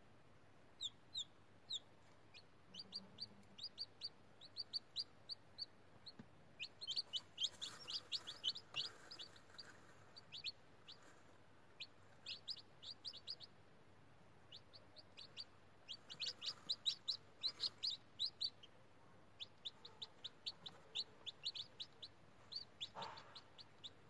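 Newly hatched chicken chicks peeping: quick runs of short, high-pitched peeps, with a brief lull about midway.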